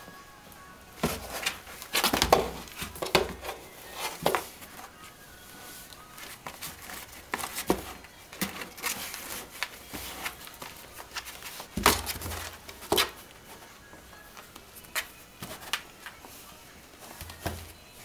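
Irregular knocks, taps and rustles, the loudest about two and twelve seconds in, over faint background music.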